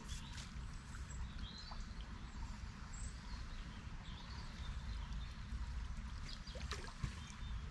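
Riverbank ambience: a steady hiss of flowing river water over a low rumble, with a few faint bird chirps.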